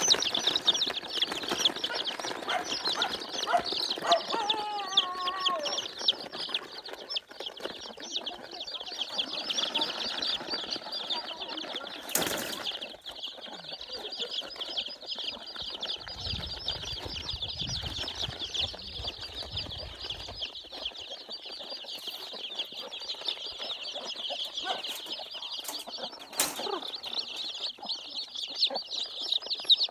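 A crowd of young chicken chicks peeping without pause, many high cheeps overlapping. A single sharp knock comes about twelve seconds in.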